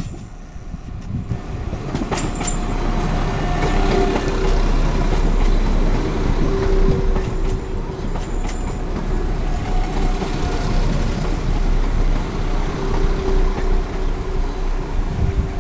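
A British Rail Class 172 Turbostar diesel multiple unit runs into the platform past the listener. Its engine and wheel noise builds over the first few seconds and then holds steady, with a few brief high squeaks from the wheels or brakes.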